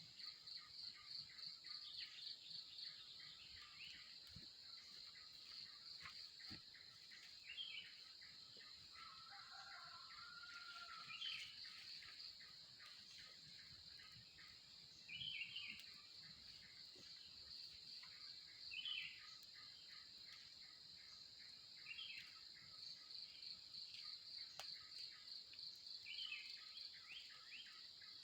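Insects trilling steadily in a high, fast-pulsing chorus, with birds chirping in short calls every few seconds. A lower two-part bird call comes about nine to eleven seconds in.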